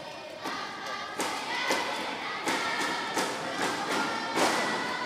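Music played over the hall's sound system during the break, with a beat of sharp knocks about twice a second.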